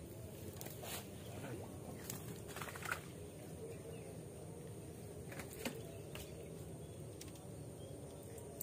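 Faint outdoor ambience at a fish pond: a steady low background noise with a few short clicks, the clearest about three seconds in and again near six seconds.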